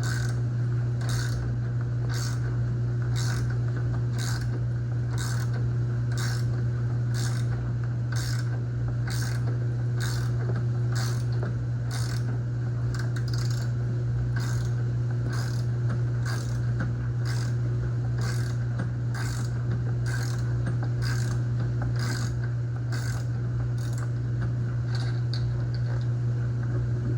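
Socket ratchet wrench being worked back and forth to loosen a bolt, its pawl clicking about once a second in a steady rhythm. A steady low hum runs underneath.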